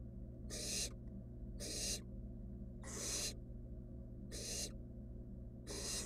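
Barn owl nestlings giving their rasping hiss, the 'snoring' food-begging call. About five short hisses come at a steady pace, roughly one a second.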